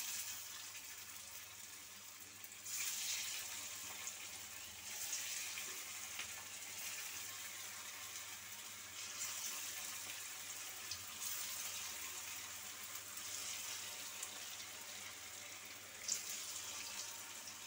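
Hot oil in a wok sizzling as mashed elephant foot yam patties (ol bora) are shallow-fried, the sizzle swelling afresh each time another patty is dropped in, several times over.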